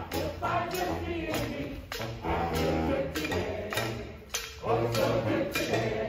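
Street brass band playing, trombones and other horns over a steady percussion beat with held low bass notes.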